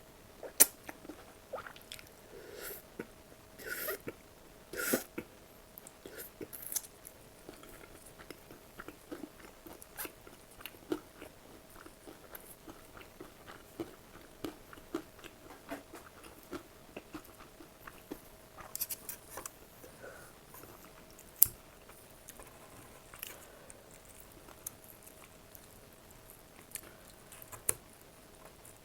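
Close-miked eating sounds: a person biting and chewing, with crisp, crunchy bites and many small wet mouth clicks, a few louder bites about four to five seconds in. A faint steady hum runs underneath.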